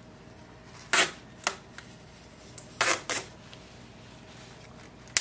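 Sealing strip being pulled out of a new laser-printer toner cartridge, in quick ripping tugs: one about a second in and a pair near the three-second mark. A sharp click comes at the very end.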